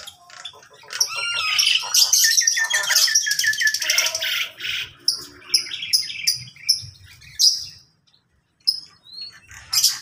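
Several caged birds calling at once: whistles, squawks and quick runs of repeated chirps, overlapping, with a brief pause about eight seconds in.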